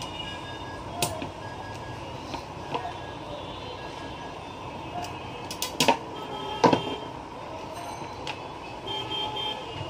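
Scattered clicks and knocks of a laser printer's fuser assembly and its wire connector being handled, the two loudest a little past the middle, over a steady background hum.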